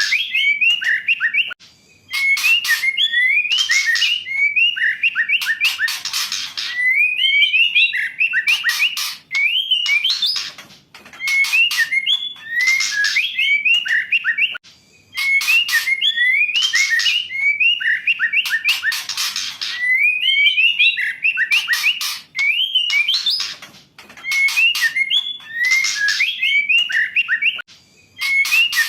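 Female white-rumped shama calling: short rising whistled notes mixed with harsh rasping chatter, in phrases that repeat about every three to four seconds. These are the calls of a female used as a lure to prompt a male shama that sings little into singing.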